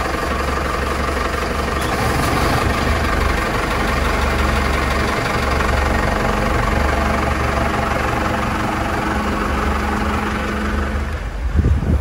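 Volvo Penta inboard marine diesel engine idling steadily just after being started, heard close up in the open engine bay. Its sound drops away near the end.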